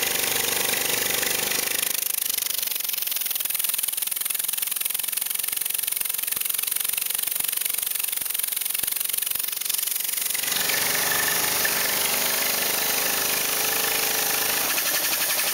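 Acrylic single-cylinder compressed-air engine running at high speed, its exhaust puffs coming so fast they blur into one dense, steady rattle. From about two seconds in until about ten seconds in, the deeper part of the sound drops away, then returns.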